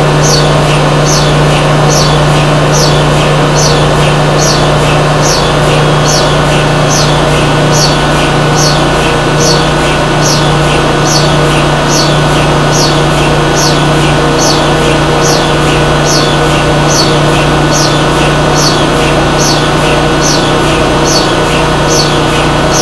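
HTS DC induction heating machine running, its electric drive motor spinning the aluminum billet in the superconducting magnet's field: a loud steady hum with a short high chirp repeating about every two-thirds of a second.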